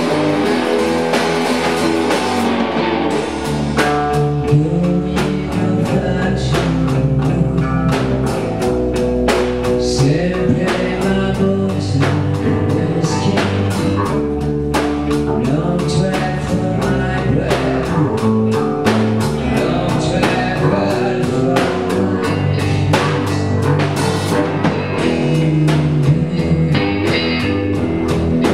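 Live band playing a slow blues jam: guitars over a steady drum kit beat, with a man singing into a microphone.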